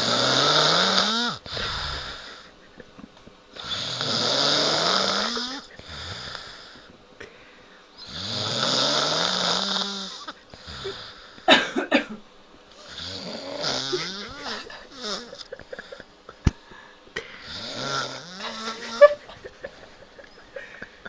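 A sleeping man snoring loudly, five long snores about four to five seconds apart, each rising in pitch, with a few sharp clicks about halfway through and again near the end.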